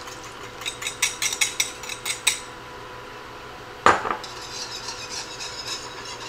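A quick run of light clinks of a wire whisk against a glass bowl as cornstarch slurry is poured into boiling broth, then one sharp clank about four seconds in. After that the whisk swishes steadily through the broth in the pan, stirring the slurry in to thicken it into gravy.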